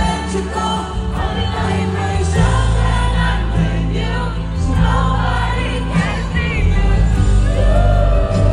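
A woman singing a live pop/R&B ballad into a handheld microphone over the band's music, amplified through a festival sound system, with sliding vocal runs and a heavy bass line.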